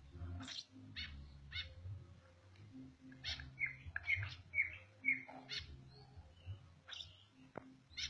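Pet parrot giving a string of short chirps and squawks, coming quickest about three to five seconds in.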